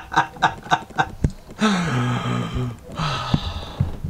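A man laughing in short, even bursts, then letting out a long, breathy groan that falls in pitch and a shorter one after it: rueful laughter at having connected the battery leads the wrong way round. A few sharp clicks of handling come in between.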